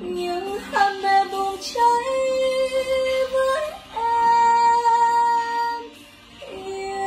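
A woman singing a slow ballad in long held vowels with no clear words. Her voice slides up into sustained notes and then holds one long high note for about two seconds, from about four seconds in.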